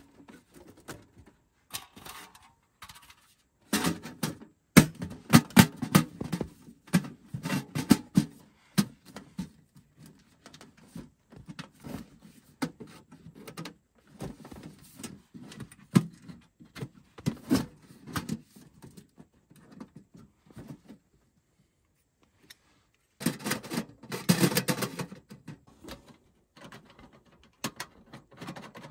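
Irregular clicks, knocks and rubbing of objects being handled, coming in clusters with a short silent gap past the middle.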